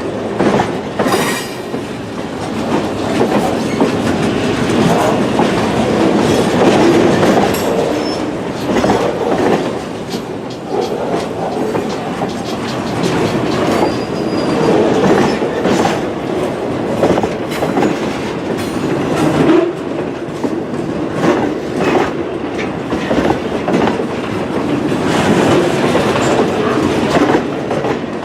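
A train rolling past close by, its wheels clacking steadily over the rail joints.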